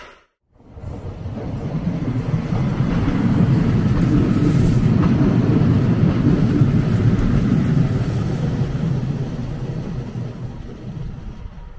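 A train passing on the line, a dense rumble that builds up to a peak in the middle and fades away toward the end.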